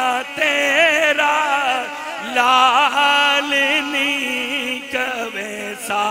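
A man chanting a devotional verse in a melody, held in long phrases with ornamented, wavering pitch and short breaks between them.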